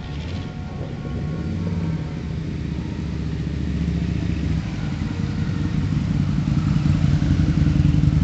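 Engines of cruiser motorcycles and classic American cars passing slowly in a parade, a steady low rumble that grows louder toward the end as the cars come closer.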